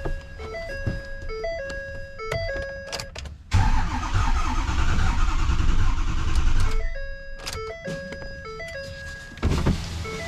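Background music with a simple repeating melody of steady tones. About three and a half seconds in, a loud rushing noise cuts in, lasts about three seconds and stops suddenly.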